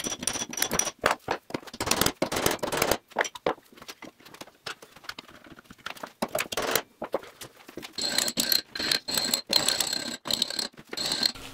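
Ball-peen hammer striking thin 260-grade brass sheet over a wooden hammer form: quick, irregular blows, several a second, each with a thin metallic ring, lighter through the middle. The annealed brass edge is being hammered in around a tube to form the flange for a radiator-tank port.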